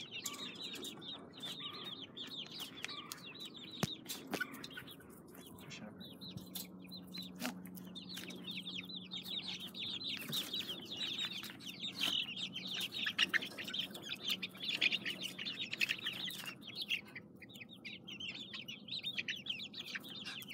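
A flock of young chicks peeping continuously, many short high chirps overlapping, with a few sharp knocks among them.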